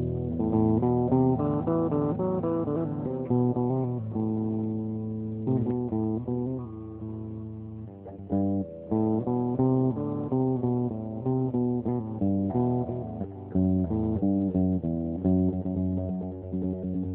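Instrumental music on plucked string instruments: a melody of quickly changing plucked notes over a low bass line.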